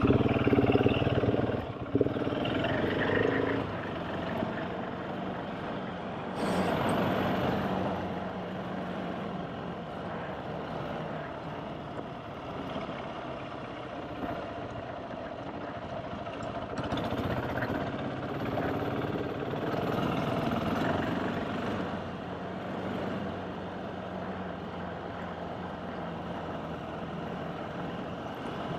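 Off-road adventure motorcycle engine running under way, louder and climbing in pitch for the first few seconds, then pulling steadily with the throttle swelling and easing a couple of times.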